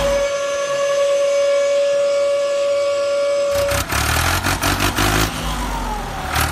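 A steady whistle-like tone is held for about three seconds, then a low engine-like drone with a rhythmic pulse comes back in.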